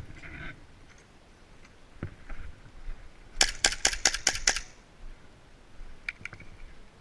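Airsoft gun firing a quick burst of about six shots in about a second, roughly halfway through.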